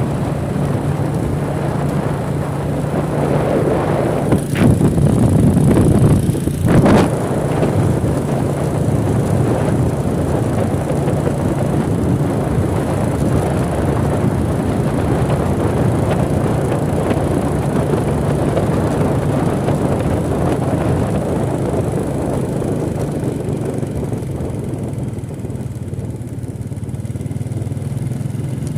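Motorcycle engine running steadily under road and wind noise, with two brief louder moments about four and a half and seven seconds in.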